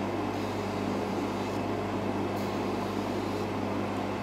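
Bench polishing machine running with a steady hum as its buffing wheel spins, with a watch case held against the wheel to buff out scratches.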